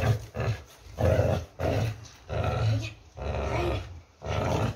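Pit bull growling in about five bursts with short pauses between, while gripping and tugging a spring-pole rope.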